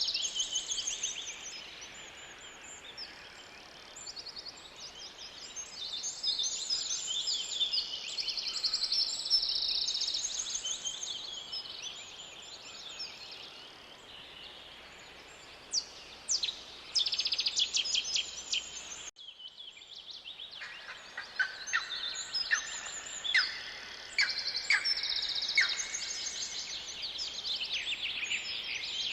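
Several songbirds singing together in a forest, a steady mix of high chirps and fast trills over a faint background hiss. Just past the middle the sound cuts off briefly and starts again, like an edit in the recording.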